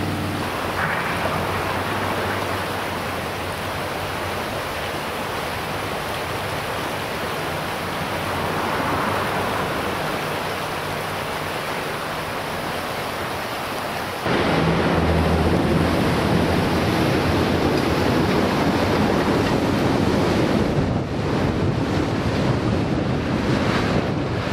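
Braided river rapids rushing steadily over stones. About two-thirds of the way through the noise turns suddenly louder and rougher, with wind buffeting the microphone.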